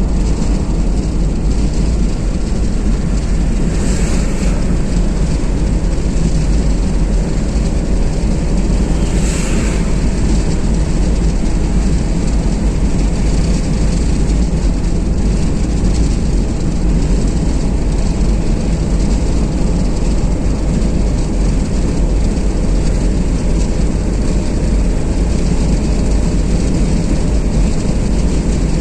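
Steady road noise of a car driving on a motorway: a continuous deep rumble with tyre and wind hiss. Two brief hissing swells come about four and nine seconds in.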